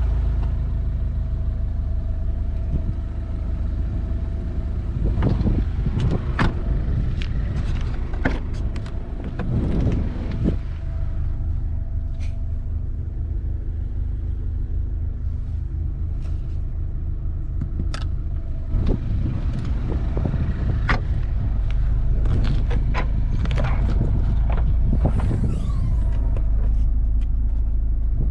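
Alfa Romeo Giulietta's 1.75 TBi turbocharged four-cylinder petrol engine idling steadily with a low rumble, with scattered clicks and knocks from the car's doors and trim being handled.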